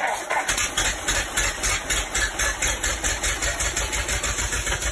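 Old car engine on a test stand running roughly with a rapid, uneven pulsing beat, just after catching, while an aerosol is sprayed into its intake.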